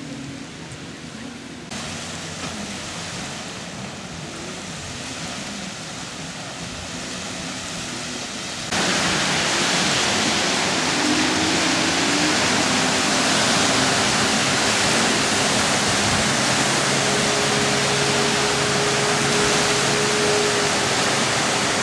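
Steady rushing noise of wind and small waves breaking on a sandy beach, jumping abruptly louder about two seconds in and again near the middle.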